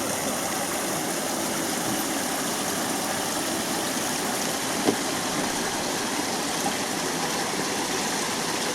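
Steady rushing of falling water from a waterfall, with a single short knock about five seconds in.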